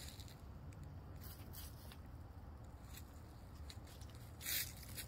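Faint rustling and crackling of dry fallen leaves as backyard hens scratch and peck through leaf litter. A handful of short crackles, the loudest about four and a half seconds in, over a faint low rumble.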